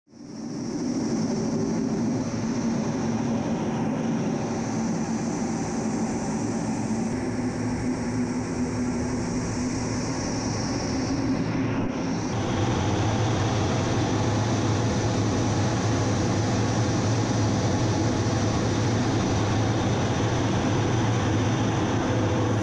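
Steady drone of an A-10C Thunderbolt II in flight heard from inside the cockpit, a mix of its TF34 turbofan engines and rushing air. It fades in at the start, and about halfway through it changes to a deeper, stronger hum.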